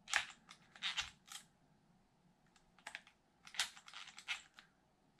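A cordless drill/driver run in several short bursts, a few tenths of a second each, as it drives the screws of an RC car's differential case.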